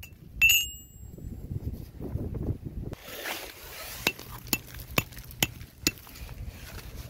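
A ringing metallic clink about half a second in, then low rumbling noise. From about four seconds there is a run of sharp clicks, roughly two a second, over a low steady hum.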